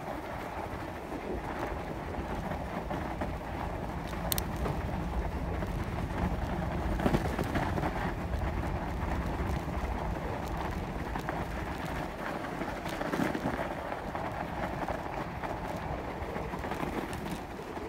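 Bicycle tyres rolling over snow on a trail: a steady rolling noise with heavy low rumble, with one sharp click about four seconds in.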